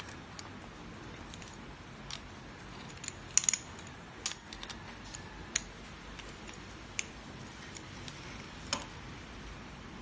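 Scattered sharp clicks and light metal clinks, about a dozen spread over several seconds, the loudest a quick cluster about three and a half seconds in, from the parts of a stainless-steel manual coffee grinder being handled and fitted together.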